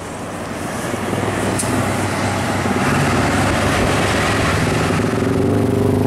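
Large tour coach passing close, its diesel engine running with heavy tyre and road noise, growing louder over the first couple of seconds and then holding steady.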